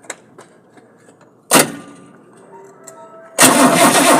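Chevrolet D60 truck's diesel engine being cranked on its replacement starter motor, worked directly at the starter. There is a sharp crack about a second and a half in, then near the end the engine fires and starts running loudly.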